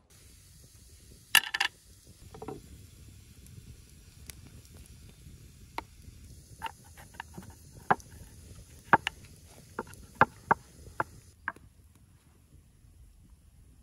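Hands at work on burger patties with utensils: a loud cluster of sharp knocks about a second and a half in, then a run of light clicks and taps as minced meat is handled and pressed into a metal ring mold on a wooden board.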